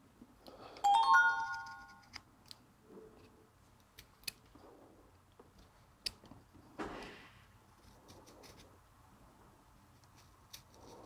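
A bright chime sound effect about a second in, several tones ringing together and fading within about a second. After it, a carving knife working a small wooden figure: scattered faint clicks of the blade and a short slicing scrape about seven seconds in.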